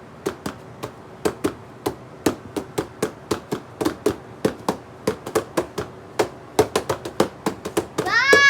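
Rapid, uneven tapping or knocking, about three to four sharp knocks a second. A high voice starts near the end.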